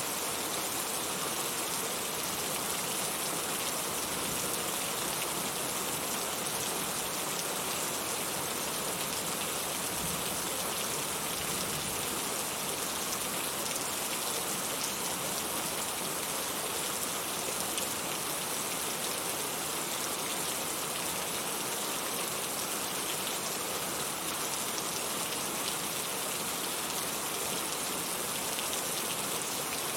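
Heavy rain falling steadily, a dense, even patter of drops on surfaces.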